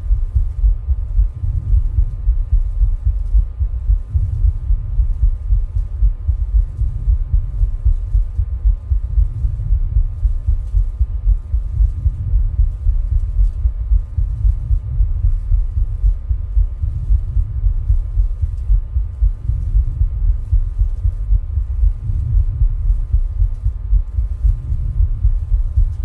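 Human heart sounds: a steady, even rhythm of dull, low heartbeats, recorded while rebreathing into a plastic bag.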